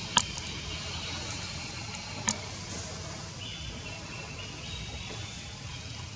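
Steady outdoor background rumble with two sharp clicks, one right at the start and another about two seconds later.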